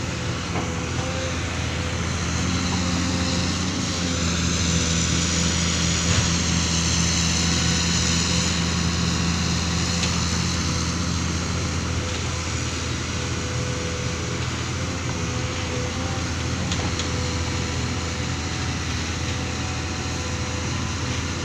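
Excavator engine running steadily at a low, even pitch, with a high whine that swells about three seconds in and eases off after about ten seconds.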